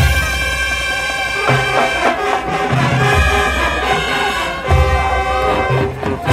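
Marching band playing: brass holding loud chords that change every few seconds, over heavy low bass notes.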